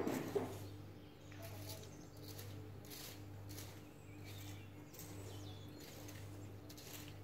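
Garden rake scratching through dead leaves and soil in irregular strokes, with a louder rustle right at the start, over a steady low machine hum.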